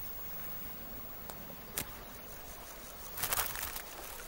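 Faint outdoor natural ambience, with a single sharp tick about two seconds in and a short rustling burst about three seconds in.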